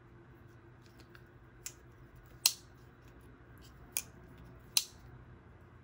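Spyderco Chaparral lockback folding knife being worked by hand, its pivot just loosened a hair and checked for blade play: four sharp metallic clicks of the blade and back lock, the loudest about two and a half seconds in.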